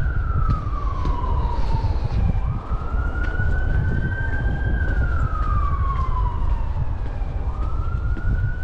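Emergency-vehicle siren wailing: one tone that climbs quickly, then sinks slowly, repeating about every five seconds, over a low rumble.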